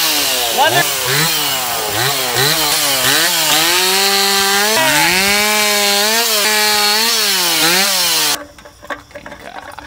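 Chainsaw engine revved hard, its pitch rising and falling again and again as the throttle is worked, then cut off suddenly near the end.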